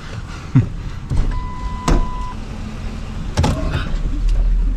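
Truck engine idling, heard from inside the cab, with two sharp knocks and a single steady electronic beep about a second long. The engine rumble grows louder near the end.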